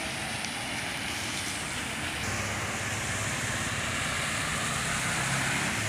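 Road traffic on a wet highway: vehicles passing with engines running and tyres hissing through standing water, the hiss growing stronger about two seconds in.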